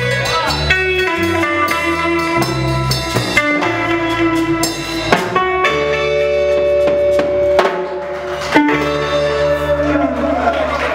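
Live son band playing an instrumental passage: electric bass and electric guitar over timbales with cymbal and hand percussion, with steady drum hits and no singing.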